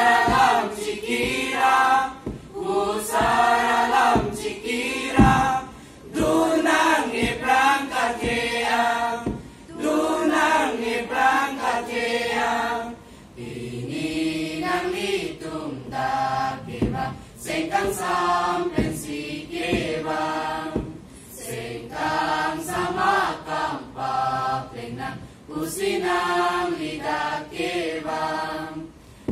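A mixed choir of school students, boys and girls, singing a song together, in phrases of a few seconds with short breaks between them.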